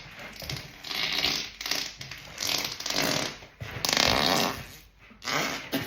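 A person farting, a few short noisy bursts one after another, the longest about four seconds in with a rasping flutter.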